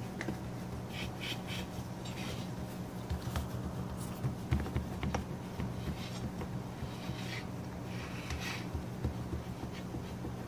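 Hands pressing and spreading soft yeast dough flat on a metal baking tray: soft, scattered rubbing and patting noises over a steady low hum.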